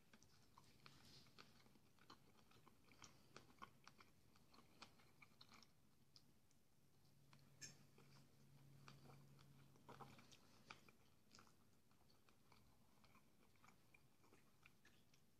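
Faint close-up chewing of fried sausage and porridge, with scattered soft mouth and fork clicks. A low hum comes in for about three seconds midway.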